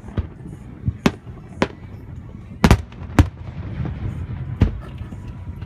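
Aerial fireworks shells bursting: a string of sharp, irregular bangs, two of them almost together near the middle, with a low rumble between them.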